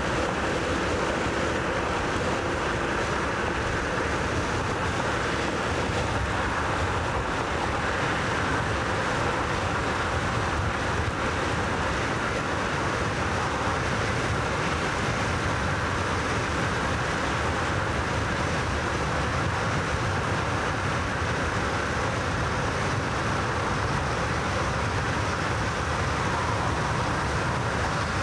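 Steady wind and road noise of a car driving fast, heard from inside the car.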